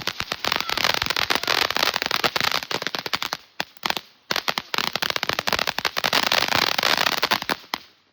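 Firework crackling with a rapid, dense run of pops. It breaks off briefly about three and a half seconds in, resumes, and stops abruptly near the end.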